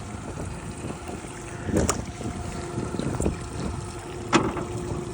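Boat's outboard motor running steadily at trolling speed, with wind on the microphone. Three sharp knocks sound about two, three and four seconds in.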